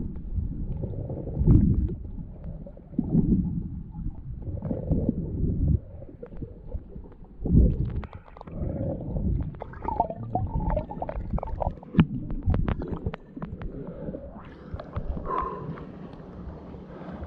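Muffled water sounds: low gurgling and sloshing that comes in uneven surges, with a scattering of sharp clicks about two thirds of the way in.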